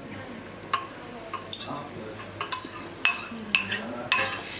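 Metal spoon clinking and scraping against a stainless steel mixing bowl: a run of irregular ringing clinks, closer together and louder in the second half, as food is stirred and scooped in the bowl.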